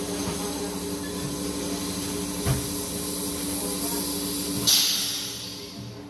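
Plastic extrusion blow-moulding machine running with a steady motor hum, with a single knock about two and a half seconds in. Near the end a loud burst of compressed-air hiss starts suddenly and fades away over about a second.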